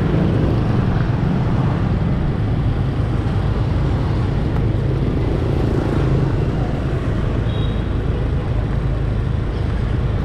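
Motorbike engine running steadily while riding along a busy city street, with road noise and passing scooter and car traffic around it.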